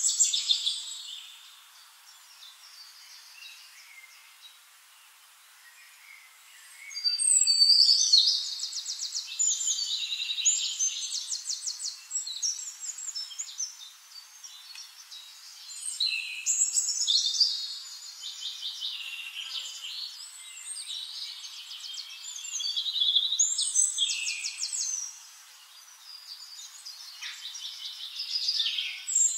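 Wild birds singing: repeated bouts of high chirps, rapid trills and falling whistles, with a quieter stretch in the first few seconds.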